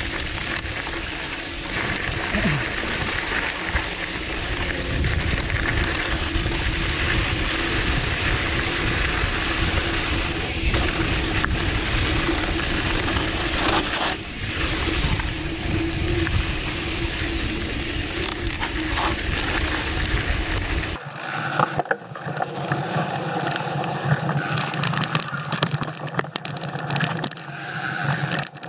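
Mountain bike rolling fast down a dry dirt trail: tyres crunching on loose gravel, chain and frame rattling, clicking, and heavy wind rumble on the action camera's microphone. About 21 seconds in the deep rumble cuts off suddenly, leaving the rattling and clicking.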